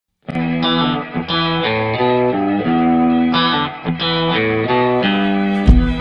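Intro music: a guitar-led melody of held notes with effects, joined near the end by a heavy, regular low beat.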